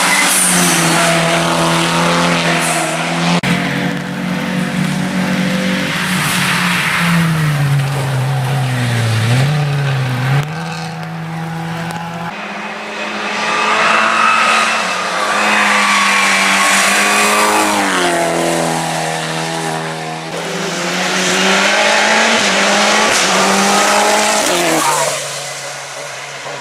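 Hill-climb race car engines at full throttle, revving up and dropping back repeatedly through gear changes as the cars pass. About halfway through the sound cuts abruptly to another car.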